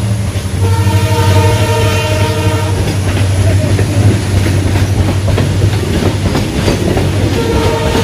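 A train passing close by. Its horn sounds for the first few seconds, then the wheels clatter over the rails, and the horn sounds again near the end.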